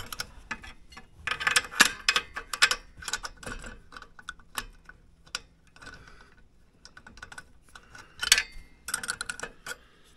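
Steel hand wrench clinking and clicking against a carburetor mounting nut as it is worked onto the nut, in a few short runs of quick metallic clicks.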